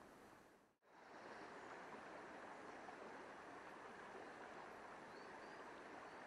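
Faint, steady rush of a shallow river flowing over stones, cutting out briefly about a second in and then carrying on evenly.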